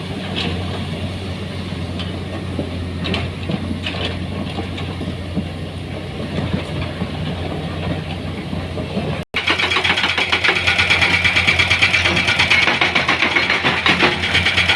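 Heavy machinery engine running steadily, with scattered knocks and clatter. About nine seconds in the sound cuts off abruptly and gives way to a fast, rapid rhythmic rattling.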